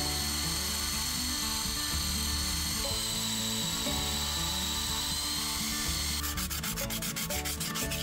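Cordless drill spinning a wire wheel brush against the steel of a cracked trailer crane mount, scrubbing off rust and paint with a steady motor whine. About six seconds in the whine stops and a quick run of scratchy ticks follows.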